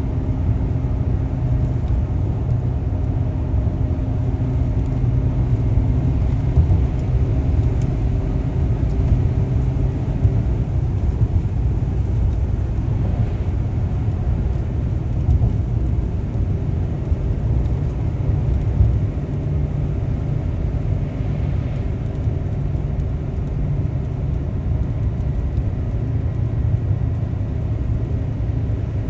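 Steady low rumble of a car driving along a road, engine and tyre noise running on without break.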